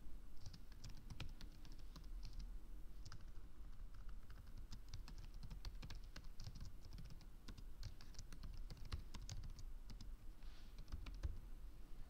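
Typing on a computer keyboard: faint, quick, irregular keystrokes, coming in short runs.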